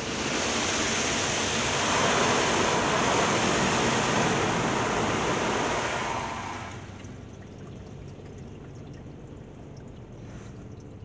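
High-pressure water jets of a touchless car wash spraying the car, heard from inside the car as a loud, steady hiss. The spray stops about six and a half seconds in, leaving a quieter background with faint ticks.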